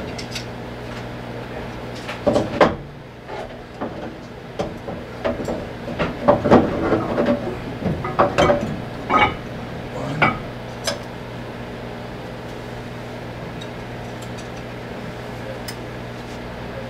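Metal counterweights clinking and knocking as they are set back into the column of a Gendex 9200 panoramic x-ray unit: a run of sharp clanks for several seconds, then they stop. A steady low hum runs underneath.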